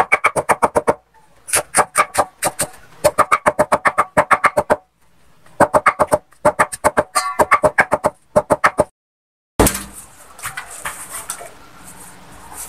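Cleaver chopping banana-trunk pith on a wooden chopping block in quick runs of about six strokes a second, broken by brief silent gaps. About two-thirds through, the chopping stops and gives way to a softer background of light handling noise.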